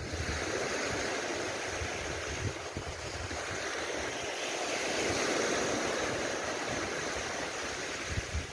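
Surf breaking and washing up a sandy beach, a steady rush that swells to a peak about halfway through and eases off, with some low wind rumble on the microphone near the end.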